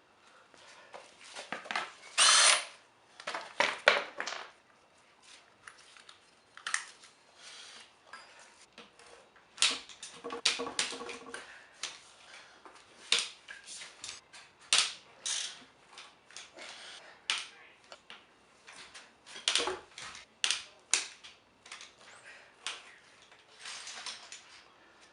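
Tools working on an engine during teardown: a power tool runs in short bursts, with many sharp clicks and clanks of tools and metal parts.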